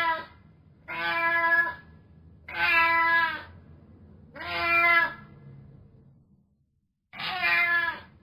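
Cat meowing: the tail of one meow, then four separate meows of nearly a second each, spaced about a second and a half apart, with a longer pause before the last.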